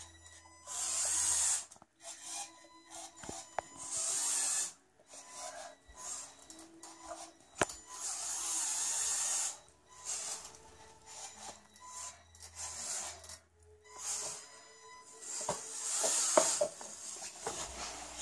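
Electric drive motor and gearing of a LEGO Technic 4x4 crawler whirring in several short bursts of driving. Sharp plastic clicks and knocks come in between as it climbs over loose LEGO wheels on a tile floor.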